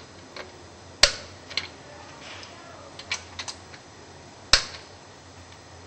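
Click-type torque wrench clicking twice, about three and a half seconds apart, each click the sign that a pump strap nut has reached its set torque, with a few lighter metal ticks between.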